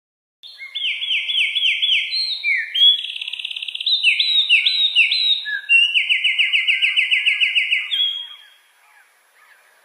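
A songbird singing: fast runs of repeated sweeping whistled notes, each phrase at a different pitch, starting about half a second in and stopping about eight seconds in.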